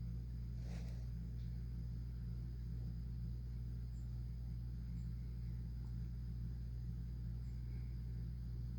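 Steady low hum with a few faint, short, high chirps from small birds. There is a brief click under a second in.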